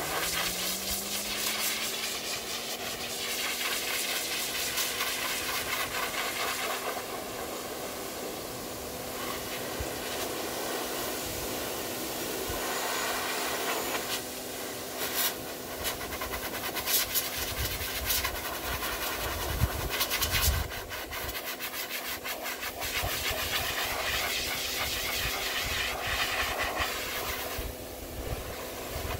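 High-velocity dog dryer running: a steady rush of air through the hose and nozzle over a steady motor hum, blasting water out of a Great Pyrenees' thick coat. The motor finishes spinning up with a rising whine right at the start, and a few bumps come partway through.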